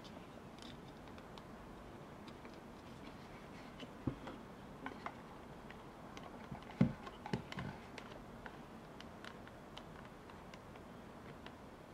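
Carving tools working a wooden skull: scattered light ticks and scrapes on the wood, with a sharper knock about four seconds in and a cluster of louder knocks around seven seconds.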